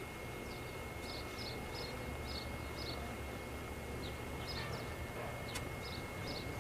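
Small birds chirping, short high notes repeating a few times a second, over a steady low rumble.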